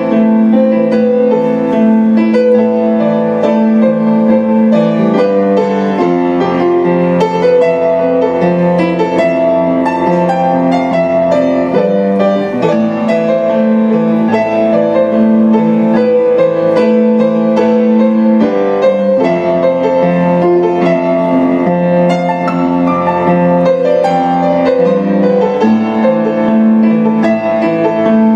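Kawai grand piano played by hand: a slow piece of sustained chords that change every few seconds, with the same chord pattern coming round again.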